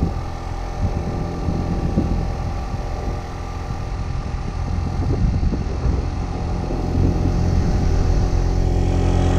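Small gasoline scooter engine running under way, a steady drone that gets louder about seven seconds in.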